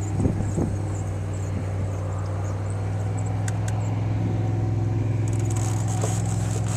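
A steady low motor hum, with a few light ticks and rustles on top.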